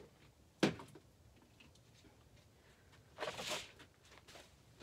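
Paint tubes and materials being handled on a work table: one sharp knock about half a second in, then a short rustling swish past the three-second mark, with little else between.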